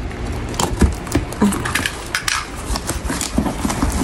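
Utility knife cutting through a corrugated cardboard box, with the cardboard and packing tape crackling and tearing in irregular clicks and scrapes as the flap is worked open.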